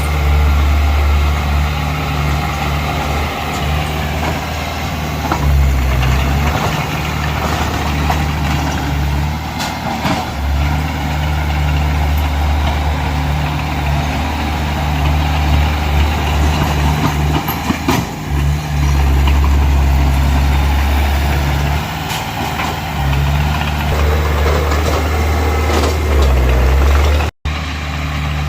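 Diesel engine of a heavy earthmoving machine running under load. Its low drone swells and eases every few seconds as the load changes, and it breaks off for an instant near the end.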